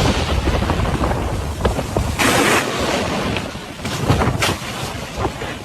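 Storm wind gusting hard across the microphone, a loud rushing and buffeting noise that swells and eases, with scattered sharp taps through it.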